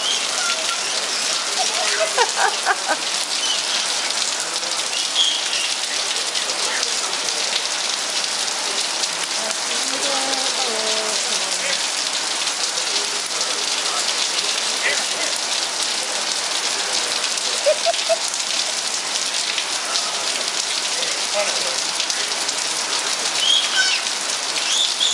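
Steady rain falling, an even dense hiss of drops hitting the ground, with brief faint voices calling out a few times.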